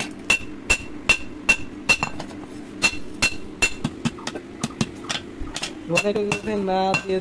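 Hand hammer striking a red-hot machete blade on a steel anvil in steady forging blows, about two and a half a second, each with a metallic ring. The hammering stops about five seconds in and a person's voice follows near the end.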